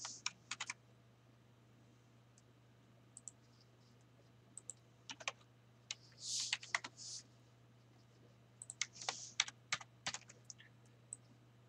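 Typing on a computer keyboard: quick key clicks in short irregular bursts with pauses between them.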